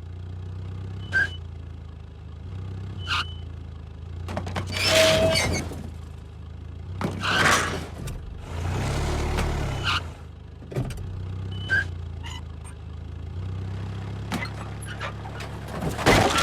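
Vehicle engine running low and steady, broken by scattered knocks and several loud crashing, scraping noises.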